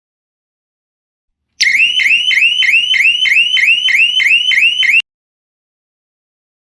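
Electronic siren of a wireless emergency pull-cord alarm sounds a loud, fast rising whoop, about three sweeps a second. It starts about a second and a half in, runs for roughly three and a half seconds and cuts off suddenly.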